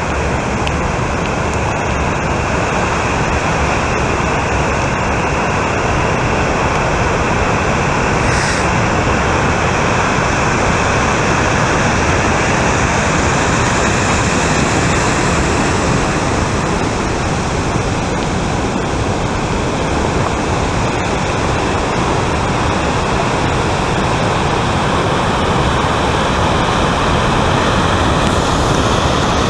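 Steady loud rush of large ocean waves breaking and whitewater churning, an even roar with no single crash standing out.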